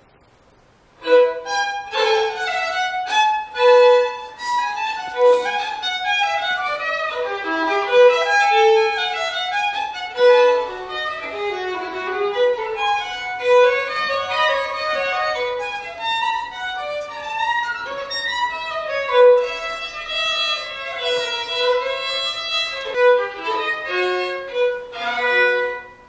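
Solo violin, a 9-million-won instrument, played in a fast, loosely improvised tune. One mid-range note keeps coming back between running passages. It starts about a second in and stops just before the end.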